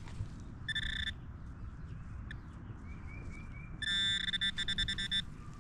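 Electronic metal-detector beeps: a short steady tone about a second in, then a longer run of rapid pulsing beeps, about seven a second, near the end, the detector sounding off on a buried metal target close by.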